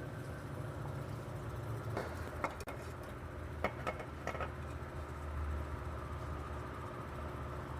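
A steady low hum, with a handful of light clicks and knocks between about two and four and a half seconds in, as a service hose and its fittings are handled and disconnected.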